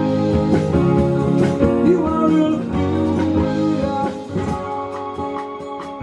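Live acoustic rock band playing: acoustic guitar, keyboard and drums, with some singing. The music grows quieter over the last couple of seconds.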